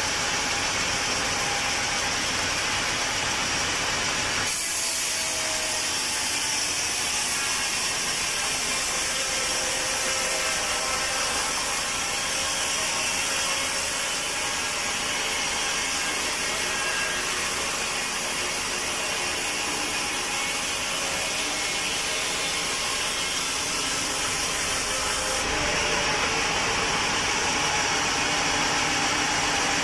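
Sawmill saw cutting through a teak log, a dense, steady noise with faint whining tones. The cut starts about four seconds in and ends a few seconds before the end, with the machine running unloaded on either side.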